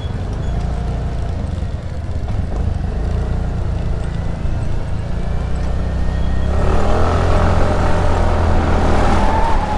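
Suzuki Burgman Street 125 scooter's single-cylinder engine running, a steady low hum that grows louder and fuller about six and a half seconds in.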